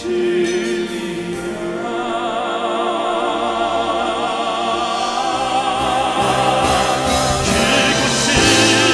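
Male classical-crossover vocal quartet singing long held notes with vibrato in operatic style over instrumental accompaniment, growing steadily louder towards a climax.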